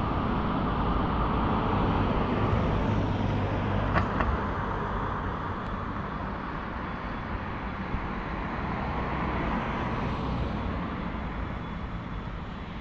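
Steady engine rumble of a canal boat under way, with a low hum and a wash of water and wind noise. A short sharp tick about four seconds in.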